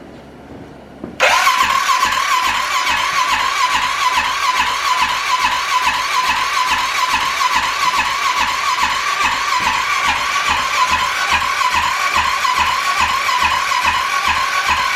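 Arctic Cat 650 H1 ATV's electric starter cranking the engine, starting suddenly about a second in: a whine that dips at an even rhythm as the engine turns over without firing. It has no spark, a fault later traced to a bad flywheel that sent no signal to the ignition module.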